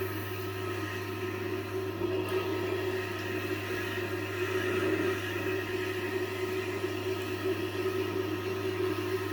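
Tormek T-8 wet sharpening machine running with a steady motor hum, and a rough, wavering grinding noise over it as a kitchen knife is sharpened on the wheel.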